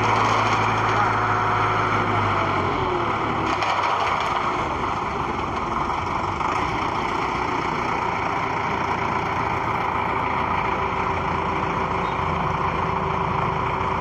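Concrete mixer truck's diesel engine running steadily; its low engine note changes about three seconds in.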